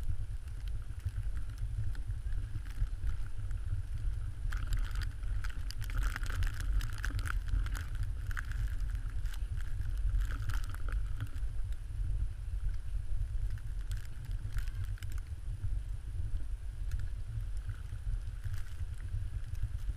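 Steady low rumble of wind buffeting the microphone, with stretches of crunching and scraping in snow, densest about five to eleven seconds in and again briefly near the end.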